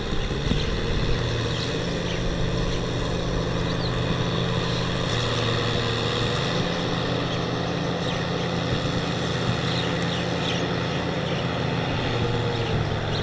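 Kubota M6040SU tractor's diesel engine running steadily under load as its rear rotary tiller churns wet paddy-field soil.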